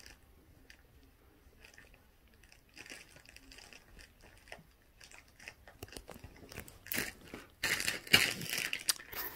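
Handling noise from the recording camera: faint scattered clicks and rustles, then louder rustling and rubbing for about two seconds near the end as the camera is moved.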